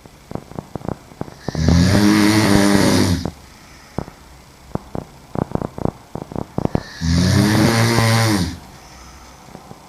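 A woman snoring while sleeping on her back: two long, loud, low snores about five seconds apart, each dropping in pitch as it ends. Quick soft clicks come in the pauses between snores.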